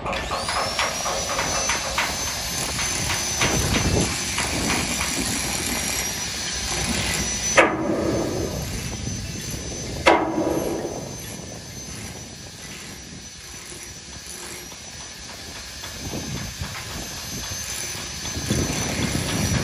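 Hammer knocks on a ship's steel plating, as in chipping rust, over a steady hiss and a thin high whine. Two loud strikes ring out about seven and a half and ten seconds in.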